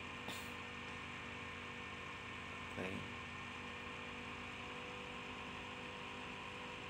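Steady shipboard electrical hum with several constant pitches. A brief soft sound comes about three seconds in.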